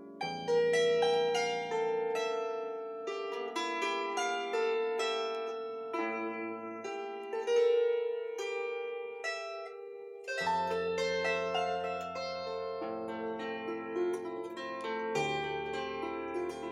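Bandura played solo: plucked melody notes ring out and fade over low bass strings. The bass drops out for a stretch and returns about ten seconds in.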